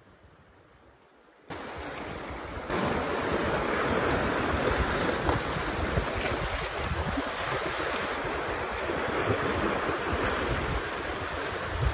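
Sea surf washing on a beach, with wind buffeting the microphone: an even rushing noise that starts abruptly after about a second and a half of near silence.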